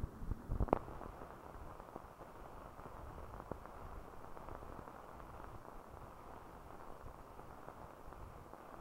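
Steady hiss and crackle of an old newsreel film soundtrack that carries no recorded sound, with a cluster of sharp pops about half a second in and scattered faint clicks after that.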